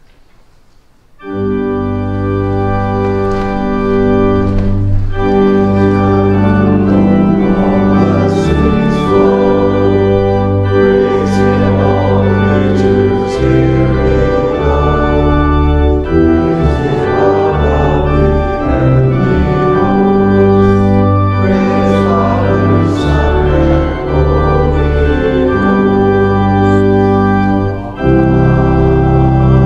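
Church organ starting about a second in and playing slow, sustained full chords over a deep pedal bass.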